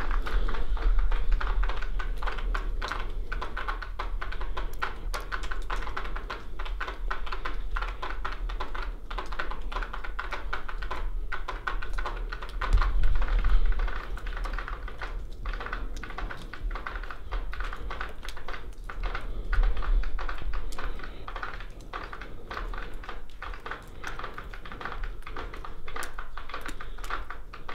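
Footsteps crunching over broken glass and debris on a decayed floor: a dense, irregular run of small clicks and cracks.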